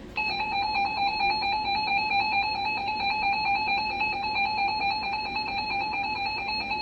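Emergency Alert System attention signal: a loud, steady, harsh two-tone alert tone that cuts in abruptly just after the start and holds unbroken. It announces an incoming emergency alert, here a severe weather warning.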